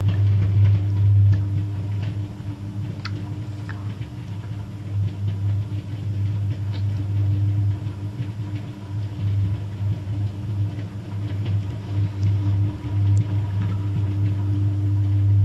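High-voltage electric arc burning continuously on substation equipment, a loud low buzz that wavers in strength, with a few faint crackles.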